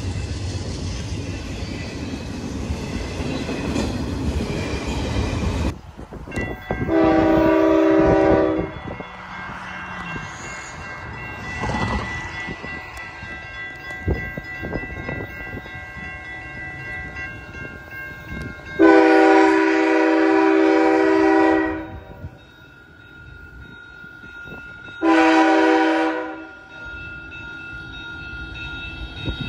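A freight train of autorack cars passes close by with a steady rumble of wheels on rail, which stops abruptly about six seconds in. Then an approaching diesel freight locomotive sounds its multi-chime air horn three times; the middle blast is the longest.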